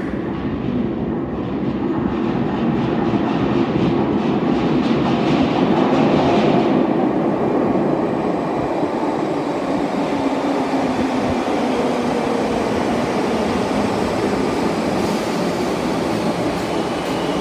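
Merseyrail Class 507 electric multiple unit running into an underground station platform out of the tunnel. Its steady rumble grows louder over the first several seconds and then holds as the carriages pass along the platform.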